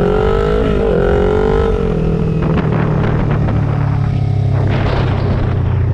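Motorcycle engine pulling hard, its note climbing with a short dip about a second in as it shifts up. After about two seconds the throttle eases off and the engine settles to a lower, steadier note under wind and road noise.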